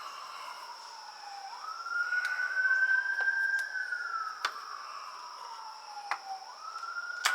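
Emergency vehicle siren wailing, its pitch sliding slowly down, climbing back quickly about two seconds in, then falling again. A few sharp clicks of handling come through, the loudest near the end.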